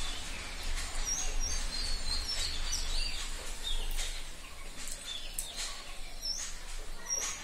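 Small birds chirping repeatedly, with short quick chirps throughout, over a steady low hum and a few short clicks.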